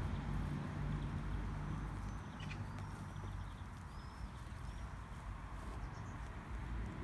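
Footsteps of high-heeled patent court shoes on a grass lawn, soft and dull, over a steady low rumble of distant traffic, with a few short bird chirps about halfway through.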